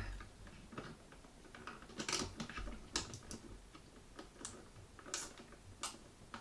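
Faint, irregular small clicks and scrapes of electrical wires being handled and a yellow plastic twist-on wire connector being screwed onto the joined white wires.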